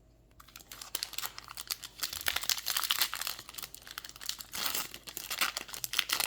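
A foil hockey card pack wrapper being torn open and crinkled by hand: a dense, irregular crackling that starts about half a second in and keeps going.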